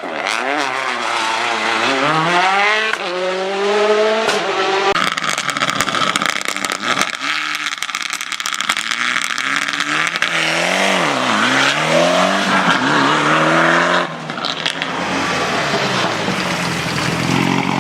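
Rally cars at full throttle on a stage, the engine pitch climbing and dropping sharply again and again through gear changes and lifts, over a haze of tyre and road noise and sharp crackles.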